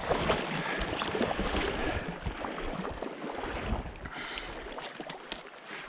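Stream water splashing: irregular splashes over a steady rush of water, busiest in the first couple of seconds and thinning out later.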